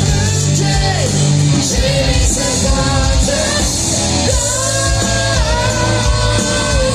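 Rock band playing live, with electric guitar, bass and drums under a long held melody line that bends in pitch.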